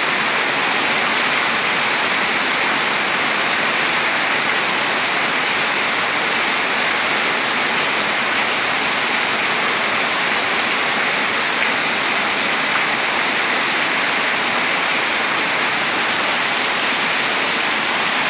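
Very heavy rain pouring down in a steady, dense hiss, splashing onto water sheeting over a concrete floor and onto potted plants.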